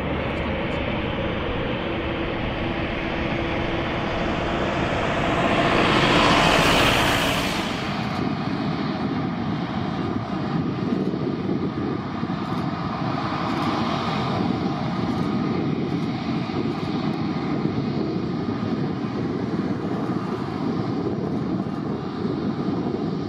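Airliner jet engines passing close, rising to their loudest about six to seven seconds in. After a sudden change, a steady engine rumble with a thin high whine follows.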